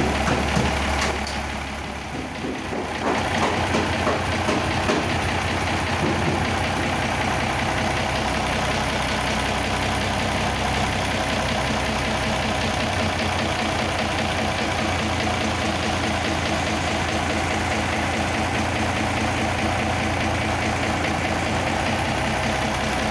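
Mercedes-Benz 917 truck's inline diesel engine idling steadily with its valve cover off, after its valves have been adjusted; the sound dips briefly about two seconds in, then runs evenly.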